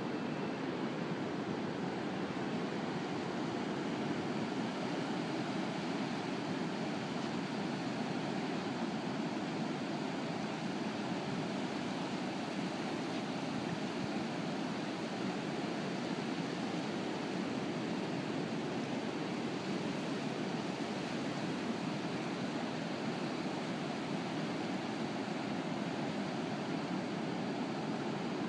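Ocean surf heard as a steady, unbroken roar, with no single wave crash standing out.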